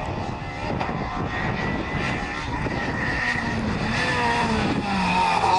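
Rally car engine running hard as the car approaches and passes close by on a narrow tarmac lane. The engine note gets stronger in the second half and falls in pitch near the end as the car goes past.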